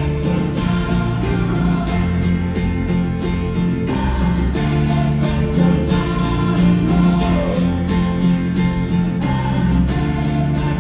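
Rock band playing live through an arena sound system, heard from within the crowd: a guitar-led passage over a steady drum beat and bass, with some singing.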